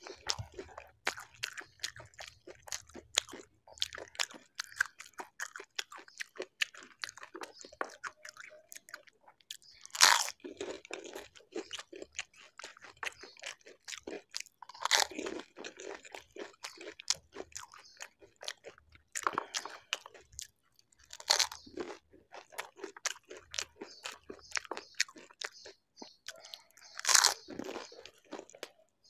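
Close-miked biting and chewing of crisp golgappa (pani puri) shells filled with curd: steady rapid crunching, with four louder crunches spaced about five to six seconds apart as whole puris are bitten.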